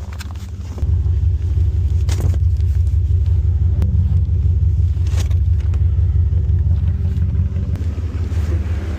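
Car engine running, heard as a steady low rumble from inside the cabin; it steps up louder about a second in and then holds steady.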